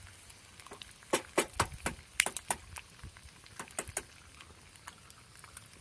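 Irregular sharp pops and ticks from a pan of bacon frying in olive oil, with a cluster of louder ones between about one and two and a half seconds in.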